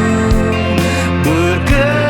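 Band music with guitars, bass and drums, steady and loud, with regular drum hits and bending guitar notes.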